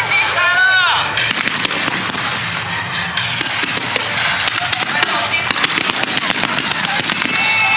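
Fireworks going off in a dense run of crackling pops, with a few short rising-and-falling cries or whistles about half a second in.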